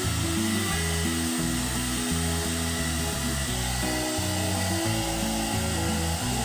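Background music with a bouncy line of changing notes over the steady whir of a hot air brush (one-step hair dryer and styler) blowing.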